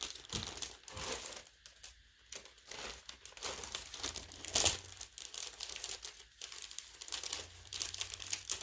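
Packaging crinkling in irregular bursts as it is handled, with one louder crackle about halfway through.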